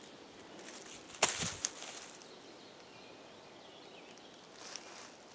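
Footsteps crunching through dry forest litter: one sharp crunch about a second in and a softer rustle near the end, over a faint outdoor background.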